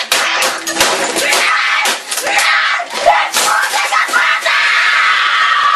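A person screaming in a rage while rapid, hard hits crash down, the sound of a keyboard being smashed. Near the end the hits stop and the screaming becomes one long held yell.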